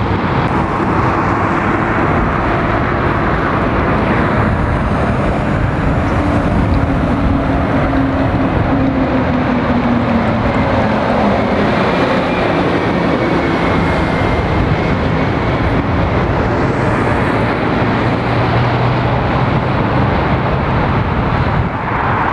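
Heavy road traffic passing: lorries, a refuse truck and vans driving by, their engine notes falling in pitch as they go past, under a steady roar of tyres and wind on the microphone.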